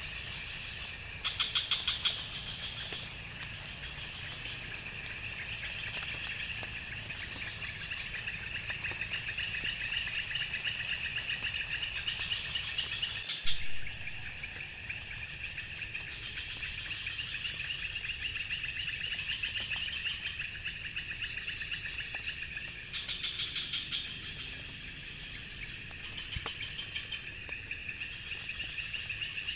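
Insects, chiefly crickets, trilling steadily in a chorus of several overlapping pitches, with short louder chirping bursts now and then. There is one brief loud thump about thirteen seconds in.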